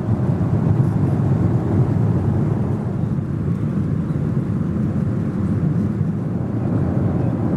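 Steady, deep cabin noise of a Boeing 777-300 airliner in cruise flight: the constant sound of the engines and air rushing past the fuselage, heard from a seat in the economy cabin.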